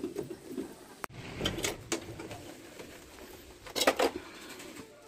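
Metal clicks and clanks of hand tools working on an air conditioner's outdoor unit as its piping is taken apart, with a loud clatter near the end. A bird coos in the background.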